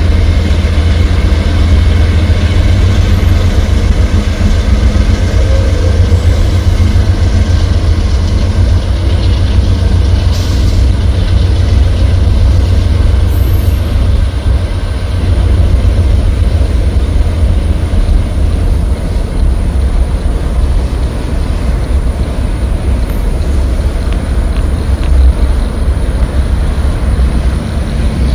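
Freight train crossing a steel girder bridge: the drone of the CSX GE AC4400CW diesel locomotives fades after the first few seconds, leaving a steady heavy rumble of tank-car wheels rolling over the bridge.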